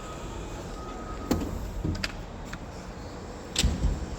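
Metal tool chest drawers being slid and handled: a few sharp clacks, then a louder double bang near the end as a drawer is shut.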